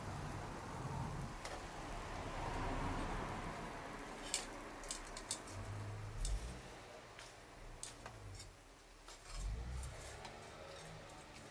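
Wood campfire crackling, with scattered sharp pops clustered around the middle and a few low rumbles.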